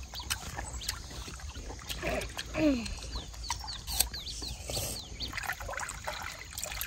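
River water trickling and splashing against the side of a boat, with a short falling cry about two and a half seconds in and a quick series of short high chirps a little later.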